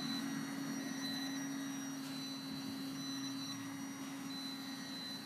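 Control-line stunt model aircraft's motor running steadily in flight: a constant hum with a thin high whine that comes and goes.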